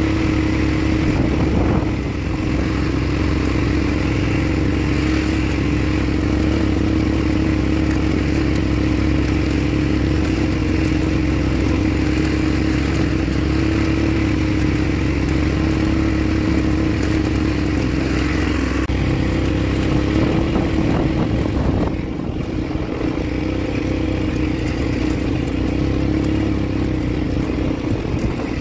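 Quad ATV engine running steadily at cruising speed on a dirt trail, a continuous drone with some rattle from the ride. It eases off briefly about three-quarters of the way through.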